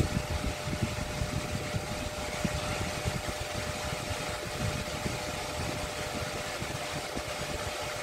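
Metal-frame electric table fan running, a steady motor hum over the rush of moving air, with an uneven low rumble.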